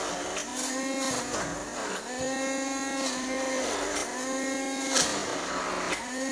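Electric mixer running in surges of about a second each, its motor whine dipping between surges, with brief high rattles of the beaters against the bowl.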